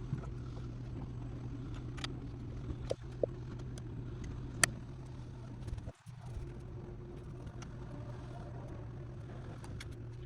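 A machine's steady electric hum, with a few light clicks.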